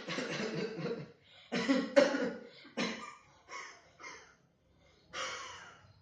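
A man coughing in a fit of about six harsh coughs, the first one drawn out, the loudest about two seconds in, and a last one near the end.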